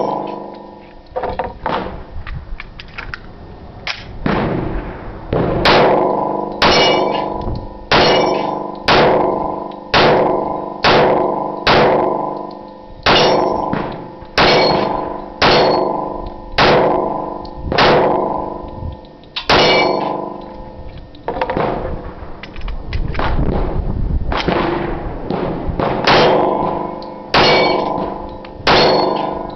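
Glock 21 .45 ACP pistol fired at about one shot a second, each shot followed by the clang and ring of a steel target being hit. The firing pauses briefly near the start and again about two-thirds through.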